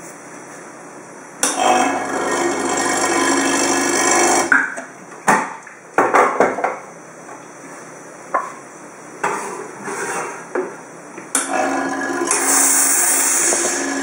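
Espresso-making sounds: a steady electric hum for about three seconds, a few sharp knocks about five and six seconds in, then the hum again near the end with a hiss over it.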